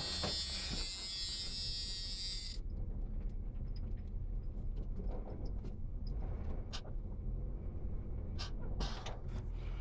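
A car's electric power-window motor running with an even whine, cutting off abruptly about two and a half seconds in. After it comes a low steady rumble with scattered light clicks.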